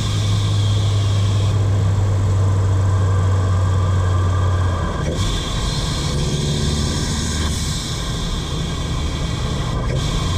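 Tuned turbocharged four-cylinder engine of a VW Golf, recorded from inside the engine bay while driving: a steady low drone under an even hiss. About five seconds in the drone drops slightly in pitch and the hiss grows.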